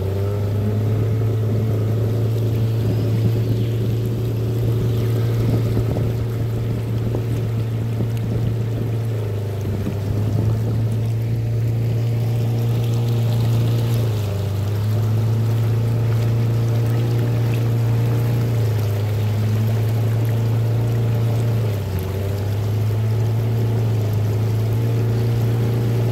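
A small open boat's outboard motor running steadily under way, with its pitch shifting slightly a few times.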